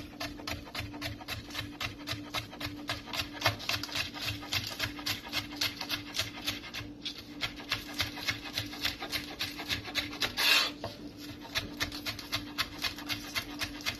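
Kitchen knife chopping green onions on a wooden cutting board: rapid, even taps of the blade on the board, about five a second, pausing briefly about seven seconds in. About ten and a half seconds in there is a short, louder scraping sound.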